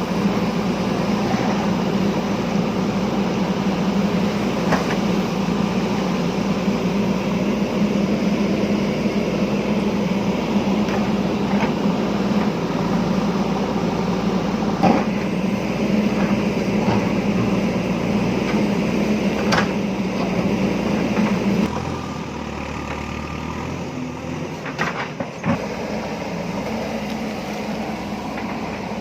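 Diesel engine of a JCB backhoe loader running steadily under working load, with occasional sharp knocks. About 22 seconds in the sound drops abruptly to a quieter drone.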